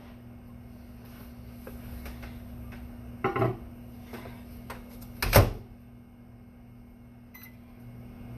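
Two clunks, the second the louder, as a stoneware pot goes into an over-the-range microwave and its door is shut, then a short keypad beep near the end as the cooking time is entered.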